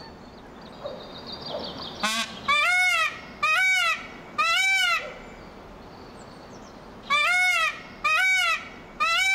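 Peacock calling: loud, wailing honks, each about half a second long and rising then falling in pitch. There is a run of three about two seconds in and another three from about seven seconds in.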